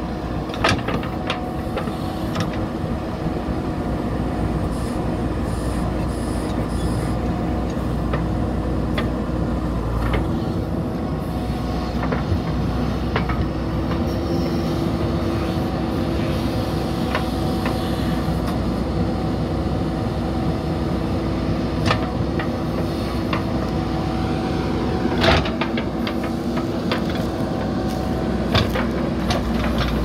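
JCB 3DX backhoe loader's diesel engine running steadily under load as the backhoe arm digs a trench, with occasional sharp knocks and clanks from the bucket working the soil and stones.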